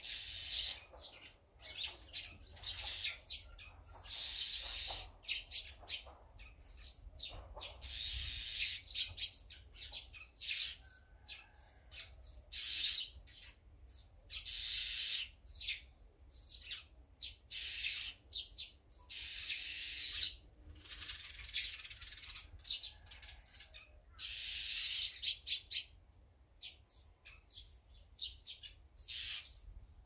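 Small songbirds chirping busily: many quick, high chirps overlapping in bursts of a second or two, with short gaps between.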